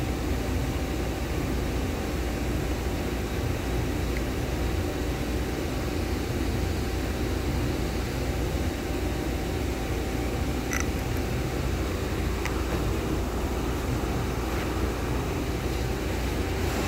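Steady low machinery drone with a faint hum, even and unchanging throughout, with a few faint small clicks about two-thirds of the way through.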